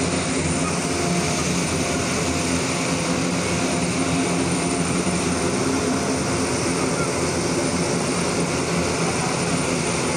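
Military cargo plane's engines running steadily: an even, loud noise with a low hum beneath it.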